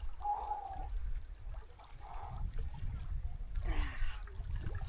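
A swimmer's sharp breaths and gasps in cold lake water: a short hum early on and a breathy gasp near the end, over a steady low rumble on the microphone.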